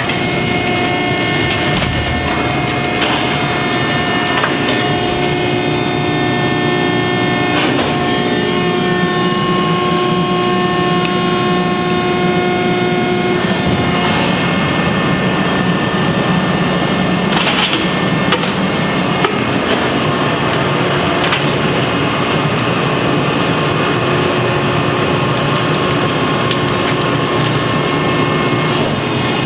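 Harris HRB-1C recycling baler running: a steady, loud machine hum with several held tones, broken by a few sharp knocks.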